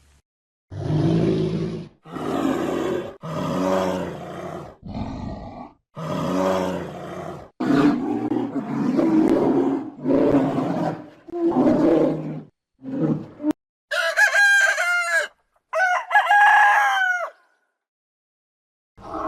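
Chickens calling: a series of rooster crows and clucks, each call about a second long, then higher-pitched calls a few seconds before the end.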